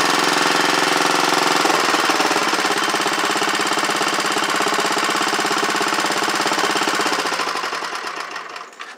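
Vintage Wheel Horse garden tractor's single-cylinder engine running with a fast, even beat, then dying away and stopping near the end as it is shut off.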